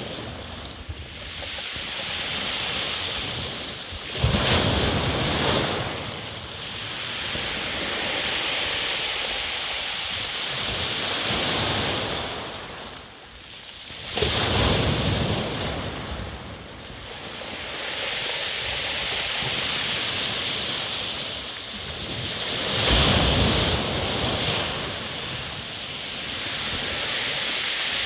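Sea surf washing in and breaking, swelling to a louder surge about every nine or ten seconds, with wind rumbling on the microphone.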